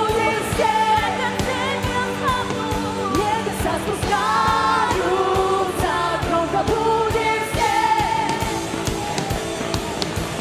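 Live worship band: women's voices singing over acoustic and electric guitars and a drum kit.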